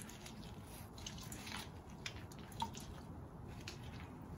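Indigo dye dripping back into a plastic bucket vat as gloved hands squeeze a soaked, string-bound fabric bundle, with faint scattered drips and wet squishing.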